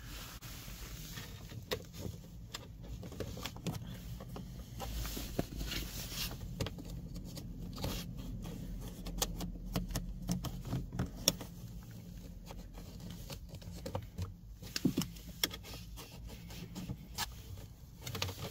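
Dashboard gap trim moulding being pressed and worked into the seam of a car dashboard by fingers and a plastic trim tool: irregular soft taps, clicks and scrapes on the plastic dash, with a steady low hum underneath.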